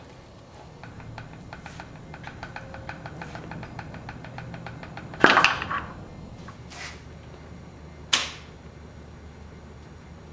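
A ratchet wrench clicking rapidly on a KA24DE engine during teardown, followed by two loud sharp cracks.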